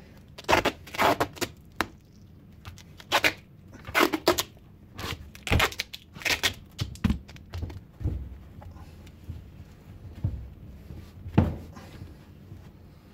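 Duct tape being pulled off the roll in short rips and wrapped around the joint between a tin can and a plastic traffic cone to seal it airtight. A few dull knocks follow as the taped can and cone are handled, the loudest about eleven seconds in.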